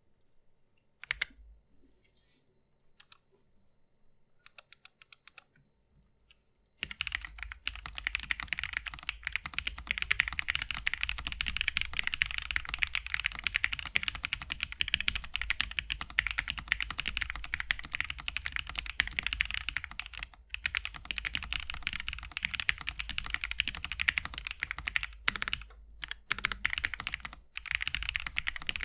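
Typing on a Fancytech Alice 66 mechanical keyboard with a stacked acrylic case, POM plate and UHMWPE Cream switches. It begins with a few scattered keystrokes and a short quick run, then fast continuous typing from about seven seconds in, with brief pauses near the end.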